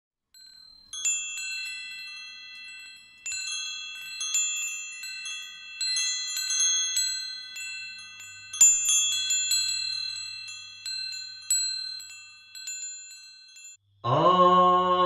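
Wind chimes tinkling: several high ringing notes struck irregularly, overlapping and fading. Near the end the chimes stop and a louder, lower sound with a steady pitch starts.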